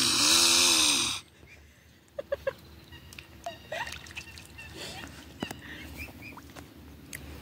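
Mute swan hissing loudly for about a second at the start, then stopping. After that come soft short calls from the swans and faint dabbling splashes as they feed at the water's surface.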